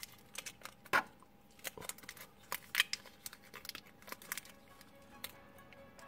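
Thin clear plastic wrap being peeled by hand off an action figure's parts: irregular crinkling and sharp crackles, loudest about a second in and again near three seconds.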